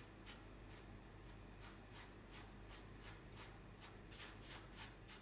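Near silence, with faint irregular rustling ticks, about four a second, from black nitrile-gloved fingers handling and turning a small steel socket head screw.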